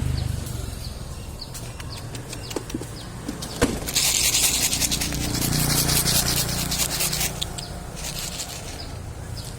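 Dense crackling and rustling with scraping, loudest from about four to seven seconds in, over a low steady hum.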